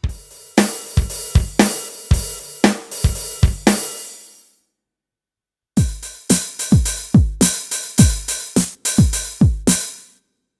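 Yamaha SHS-500 Sonogenic keytar playing a drum voice with reverb, two short phrases of drum hits separated by a pause of over a second. The deep hits drop in pitch.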